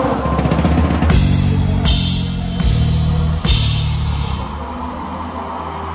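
A live pop band's drum kit playing three big accents about one, two and three and a half seconds in, each a cymbal crash with a bass-drum hit over held bass notes, after which the music drops to a quieter sustained backing.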